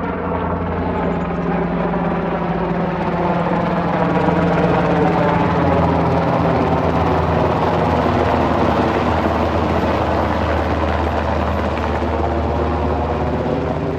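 Sikorsky UH-60 Black Hawk helicopter flying low overhead, its twin turbine engines and four-blade main rotor running steadily. The sound is loud and slightly shifting in pitch as it passes, loudest about four to five seconds in.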